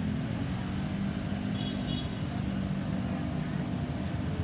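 Road vehicle engine running steadily, a low hum, with a brief high-pitched chirp about a second and a half in.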